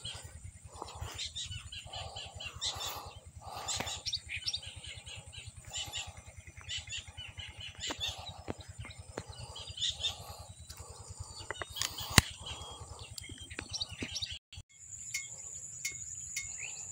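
Birds chirping and calling again and again over a steady high insect hum, with one sharp click about twelve seconds in.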